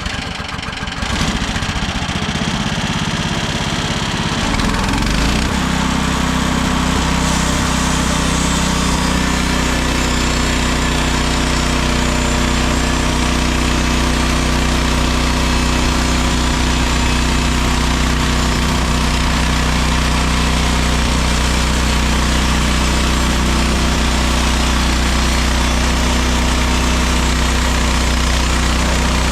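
Mechmaxx SM32 sawmill's gasoline engine, just started: it runs unevenly for the first few seconds, then settles about five seconds in into steady running at a constant speed.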